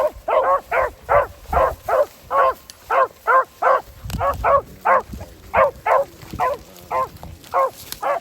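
13-inch female beagle baying in a steady, even run of barks, about three a second, the voice a trailing hound gives while running a rabbit's scent line.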